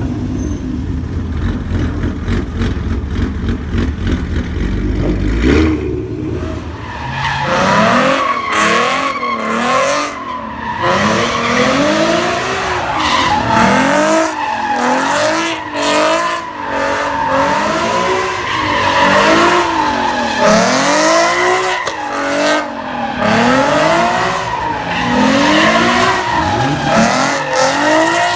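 A car engine rumbling low, then from about seven seconds in revving up and down over and over, roughly once every second and a half, while the tires squeal continuously: a car spinning its tires.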